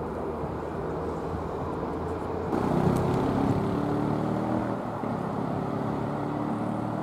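Steady engine rumble of a passing vehicle, growing louder with several engine tones for about two seconds just before the middle, then settling back.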